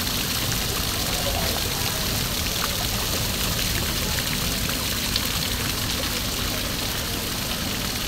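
Water trickling and splashing steadily down an artificial rock-wall waterfall.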